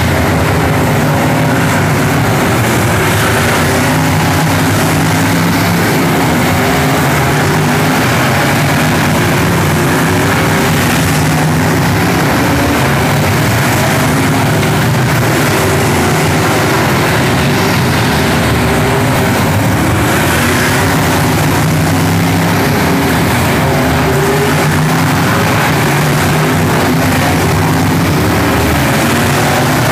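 Race car engines running loud and continuous, their pitch rising and falling in waves as the cars speed up and slow down.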